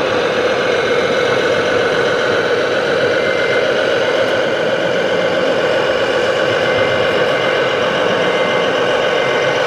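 Simulated diesel truck engine running steadily from a radio-controlled Mercedes tipper truck's sound module, an even engine drone with no revving.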